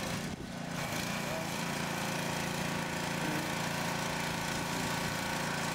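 A steady mechanical hum, like a running engine, holding the same pitch throughout, with a brief dip about a third of a second in.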